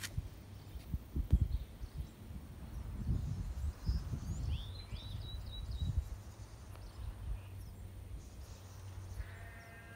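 A sheep bleating, one wavering call that starts about nine seconds in. Before it come low rumbling thumps, the loudest about a second in, and a few short high chirps around the middle.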